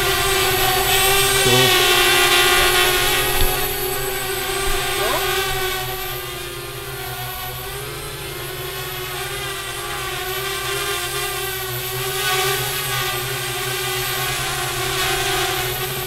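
Parrot Bebop quadcopter drone flying low, its four propellers making a steady whine of several tones that waver a little in pitch. It is loudest in the first few seconds and softer around the middle.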